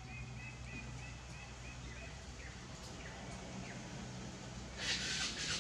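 Outdoor ambience over a low steady hum. A run of short high chirping calls repeats about three or four times a second, stops after about two seconds, and a few fainter downward chirps follow. Near the end comes a burst of louder rustling noise.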